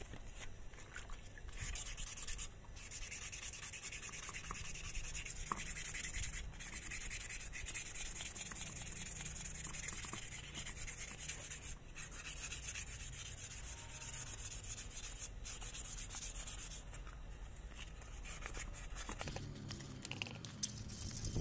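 P800 wet-and-dry sandpaper rubbed back and forth along a screwdriver handle while wet sanding, giving a steady scratchy hiss with a few brief breaks between strokes.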